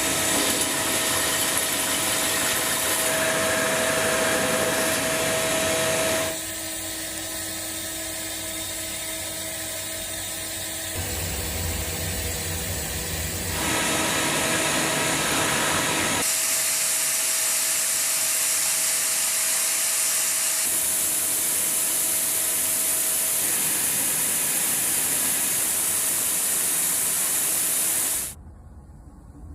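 CNC machine running: a steady machining noise with strong hiss and a few steady tones. The sound shifts abruptly several times, then drops away suddenly near the end.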